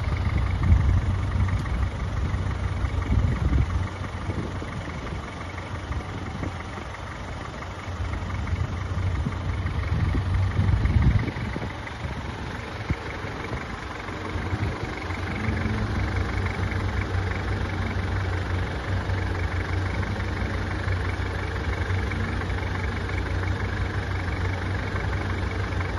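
Mitsubishi Pajero's engine idling steadily, with louder low rumbling in the first few seconds and again around nine to eleven seconds in.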